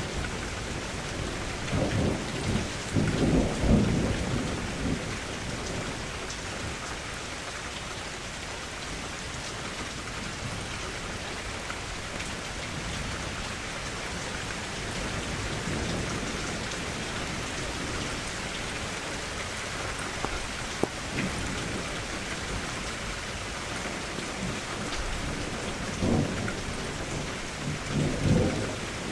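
Steady rain falling against a window, with low rolls of thunder about two seconds in and again near the end.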